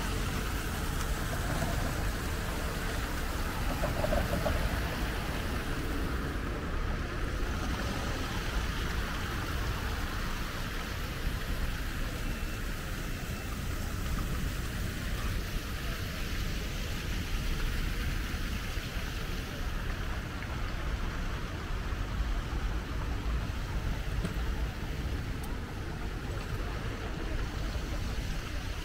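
City street ambience: a steady wash of traffic noise from passing cars.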